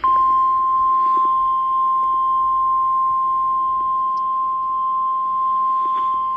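NOAA Weather Radio warning alarm tone: one steady, unbroken high tone of about 1050 Hz, the signal that a warning message follows.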